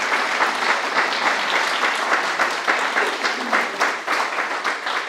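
Audience applauding, many people clapping at once, tapering off near the end.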